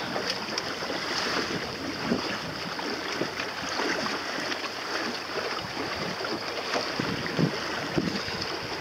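Water lapping and splashing against the hull of a sailboat under way, with a steady hiss of moving water and some wind on the microphone.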